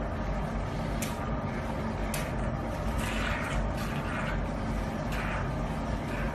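Suction pump of a hydrogen-oxygen bubble facial machine running steadily, with a few short hisses from the handpiece tip as it draws on the skin.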